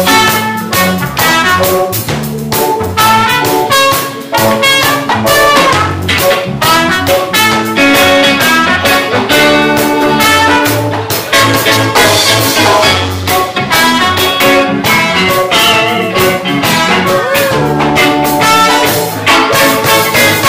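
Live band playing, with trumpet over electric guitar and a drum kit keeping a steady beat.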